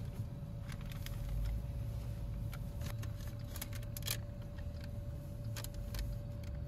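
Paper takeout bag crinkling and rustling in the hand as it is opened, in irregular crackles, over the low steady hum of a Jeep idling.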